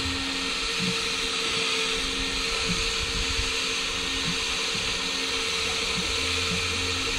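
Electric fishing reel's motor winding line in with a steady whine, bringing up a small fish from the bottom.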